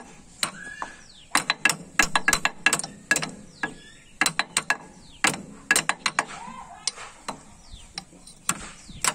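Hammer blows striking metal on a Greaves power tiller's gearbox: dozens of sharp, ringing taps in irregular quick clusters.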